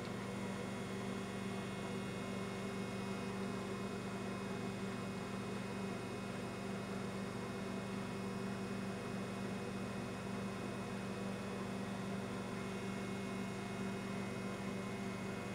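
Steady electrical mains hum, a low even buzz that does not change.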